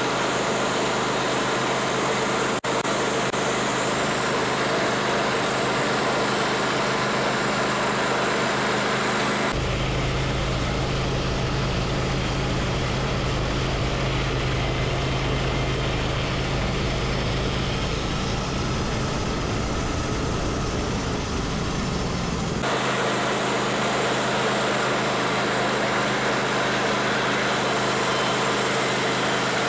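The engine of a homemade bandsaw sawmill running steadily. In the middle the sound turns heavier and deeper for about thirteen seconds, switching abruptly at each end.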